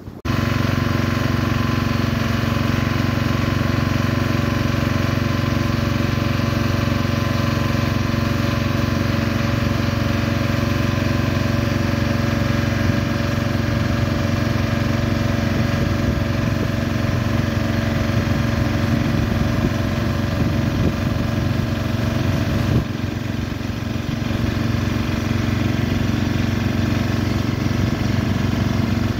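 A boat engine running steadily at an even, unchanging pitch. The sound dips briefly about 23 seconds in, then carries on the same.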